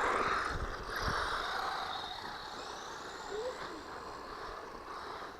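Small electric RC car running on the ground, motor whine and tyre noise, loudest in the first second or two and then fading as the car moves away.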